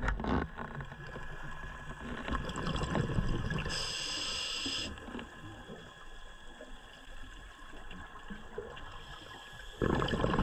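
Underwater sound of a scuba diver breathing: a low bubbling rush of exhaled bubbles, with a short hiss from the regulator about four seconds in and another burst of bubbling near the end.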